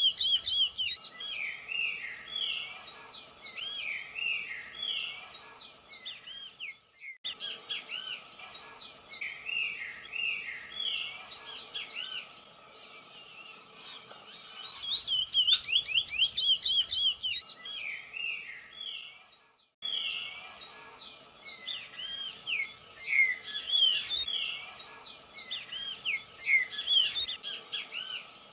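Dawn chorus of many Atlantic Forest birds singing at once: dense overlapping chirps, whistles and trills. The sound breaks off briefly twice, about 7 and 20 seconds in, then resumes.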